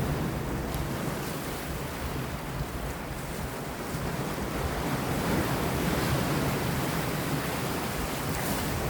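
Sea waves washing against rocks, with wind. The surf eases off a few seconds in, then swells again.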